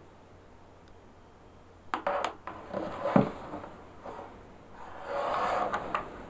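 Handling noise from a small plastic MIDI keyboard controller and its USB cable being picked up off a table: a few clicks and knocks starting about two seconds in, the loudest knock about a second later, then rubbing and scraping near the end.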